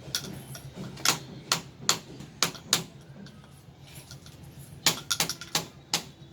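Hard UPVC plastic pipes and fittings knocking and clicking together as pipe ends are pushed into tee and cross connectors. There are about a dozen sharp knocks in two runs, one in the first three seconds and a quicker cluster near the end.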